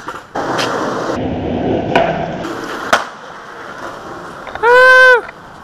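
Skateboard wheels rolling on smooth concrete, with a sharp click about two seconds in and another about three seconds in. Near the end there is a loud high-pitched call that rises and then falls, lasting about half a second.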